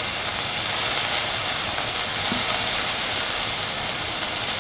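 Steady sizzling hiss of shallots, onion and dried red chillies frying in hot oil in a pan as lemon juice is squeezed in.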